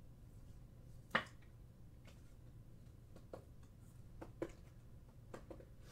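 Mostly quiet room tone broken by a few short clicks: one sharp click about a second in, then three or four fainter ticks.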